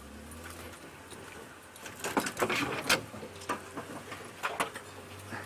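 Game-drive vehicle's engine running with a steady low hum, and a string of clicks, knocks and rattles between about two and five seconds in.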